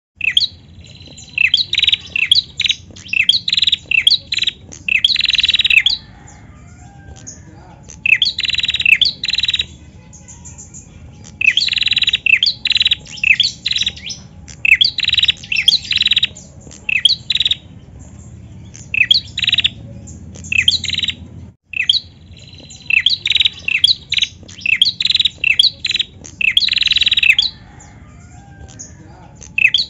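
Female prinia (prenjak) calling in repeated bouts of quick, sharp chirps, each note sweeping down in pitch, with short pauses between bouts.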